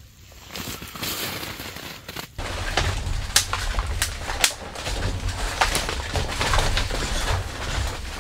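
Dry branches being snapped by hand into kindling: a run of sharp, separate cracks starting a couple of seconds in, with rustling of twigs between them.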